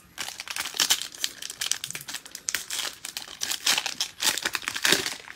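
Plastic wrapper of a Panini Mosaic baseball hobby pack crinkling and tearing as it is ripped open by hand, a dense run of crackles.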